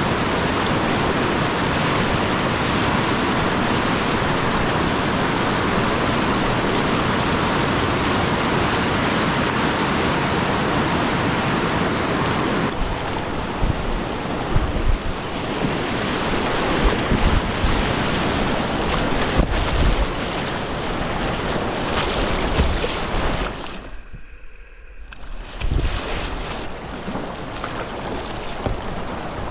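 Rushing whitewater of river rapids heard from a kayak at water level, with wind gusting on the microphone. The water sound drops out briefly about four-fifths of the way in, then returns a little quieter.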